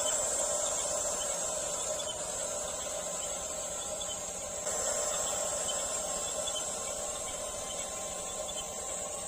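Steady whine and hiss of an RC bulldozer's electric drive motors and gearboxes running, stepping up a little about halfway through.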